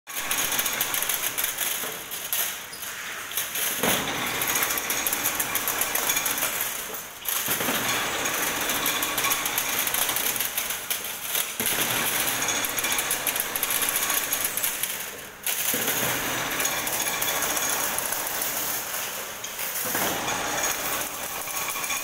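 Chain-link wire crimping machine running with a fast metallic clatter, with crimped wire pieces clinking against each other. The clatter breaks off briefly and starts again a few times.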